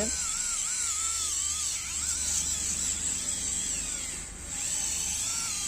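Agaro electric callus remover running, its motor-driven abrasive roller buzzing steadily as it grinds dry dead skin off a heel. The buzz dips briefly about four seconds in.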